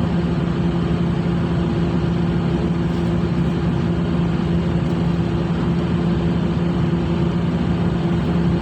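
Ship's machinery running with a steady, even hum, holding a constant low pitch without changing.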